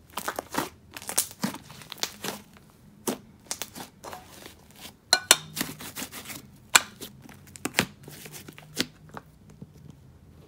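Thick, creamy clay slime being squished and folded by hand, making irregular crackling clicks and pops. Near the end it is pressed into a clear plastic tub, with a few louder clicks.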